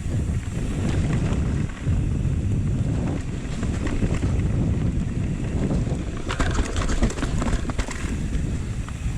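Wind buffeting the camera microphone during a mountain bike ride, a steady low rumble, with a flurry of short clicks and rattles from the bike over the trail about six to eight seconds in.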